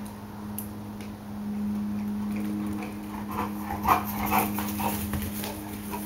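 A black Labrador and a young whitetail deer at rough play, the dog carrying a soccer ball. About halfway through comes a quick run of scuffling footfalls and muffled dog noises, loudest for a moment near the middle, over a steady low hum.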